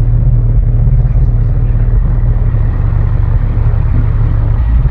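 Four Crescendo Contralto 15-inch subwoofers playing loud, steady deep bass, a low rumble with little sound above it.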